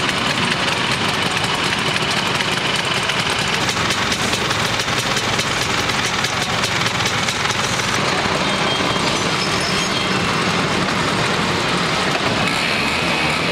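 Many scooter engines running at once, a steady, dense engine noise.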